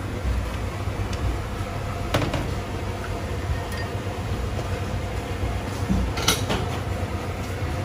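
Cutlery clinking against plates and bowls a few times while eating, the loudest clinks a little past six seconds in, over a steady low background rumble.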